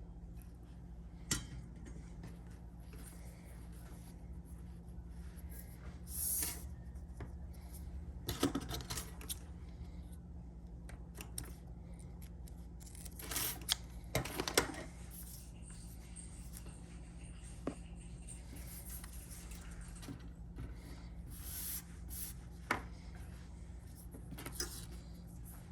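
Intermittent handling of small mechanical parts: a few sharp clicks and short scraping, rubbing spells over a steady low hum.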